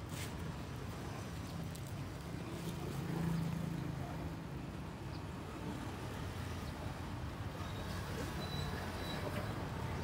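Street traffic: a steady low hum of passing vehicles, one swelling louder about three seconds in, with scattered faint clicks.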